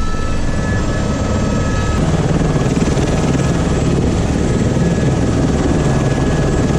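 Helicopter turbine and rotor noise heard from inside the cabin with the side door open: a loud, steady whirring rush, with a faint high whine during the first two seconds.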